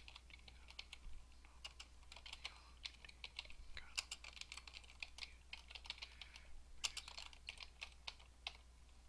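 Computer keyboard being typed on: faint, quick, irregular key clicks in short runs with brief pauses.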